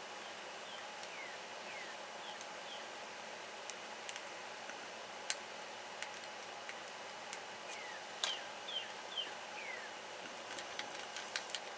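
Scattered small metal clicks of a lock pick working the pins inside an Albert Lebel Pac-Lock padlock, a few sharper ones about four and five seconds in and more near the end, over a steady hiss with faint short falling chirps.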